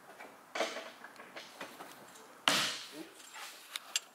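Hand tools and interior trim being worked inside a car while the rear shock absorbers are taken out: two short scraping rustles, the louder about two and a half seconds in, then a few sharp clicks near the end.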